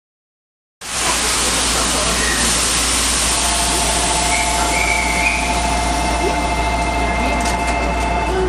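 Steady hum and hiss inside a Shonan Monorail car standing at the platform, starting abruptly about a second in. Two steady tones sound from about three seconds in and stop just before the end.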